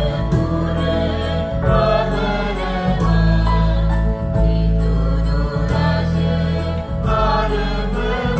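Music with singing voices over a heavy, steady bass line.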